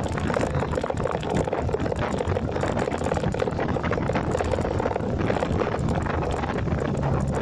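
Wind buffeting the phone's microphone during a motorcycle ride, a steady rough rush with constant flutter, and the motorcycle's engine running as a low hum underneath.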